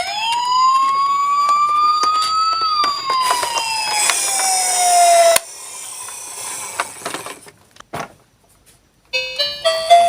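A siren sounding one slow wail, rising in pitch and then falling, cutting off suddenly about halfway through. Near the end a short tune of stepped notes begins.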